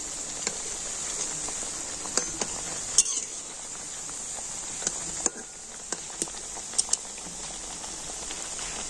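Semolina pitha deep-frying in hot oil in a metal kadai: a steady sizzling hiss. Several sharp clinks of a steel spatula against the pan come now and then as the pitha are turned.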